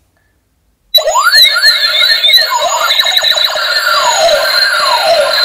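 Battery-powered light-up toy blaster's electronic sound effects: loud siren-like tones sweeping up and down, several overlapping, starting suddenly about a second in as the trigger is pulled.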